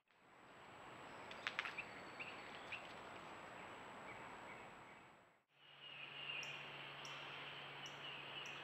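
Eastern screech owl nestlings in a nest box giving raspy, hissing screeches, their food-begging call. It is faint under a steady background hiss, with a few short chirps about a second and a half in. The screeching grows louder after a cut about five and a half seconds in, over a low electrical hum.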